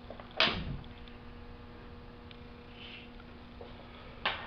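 Two sharp knocks of a welded steel tube frame on a steel fixture table, about four seconds apart, as it is pressed down to check that it lies flat. A faint steady hum runs under them.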